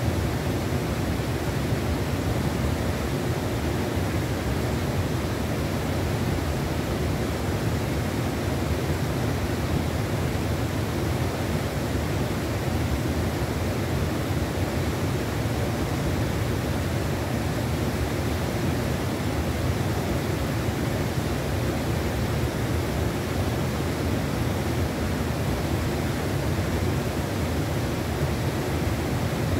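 River water rushing steadily, an even noise that does not change.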